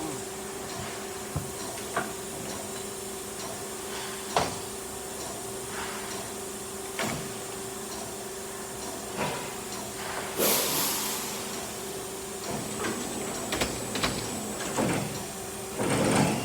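Steady hum from the CNC machine, with scattered knocks and clicks as a new workpiece is loaded and clamped, and a short hiss of air about ten seconds in.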